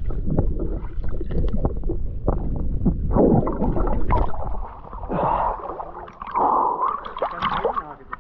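Water sloshing and gurgling close to the microphone as a person moves in a river pool, under a low muffled rumble. About halfway through it drops and becomes choppier, with bending gurgles.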